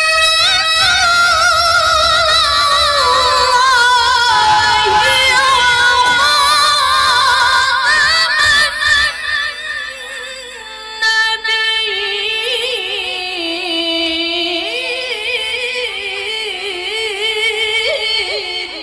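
A woman reciting the Qur'an in the melodic qiro'ah style, drawing out long ornamented notes with heavy vibrato that wind downward in pitch. There is a short break about ten seconds in, then she carries on lower and the phrase fades near the end.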